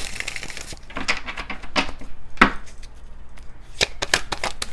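A deck of cards being shuffled: an irregular run of sharp clicks and snaps of the cards against one another.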